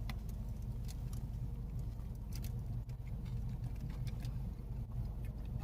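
Steady low hum of a car's idling engine heard inside the cabin, with faint scattered clicks and crinkles of a sandwich's paper wrapper being handled.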